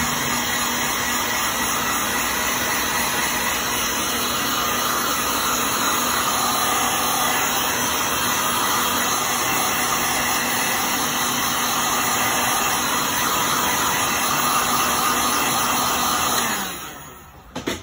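Heat gun blowing with a loud, steady whoosh as it dries wet watercolour paint; near the end it is switched off and dies away over about a second.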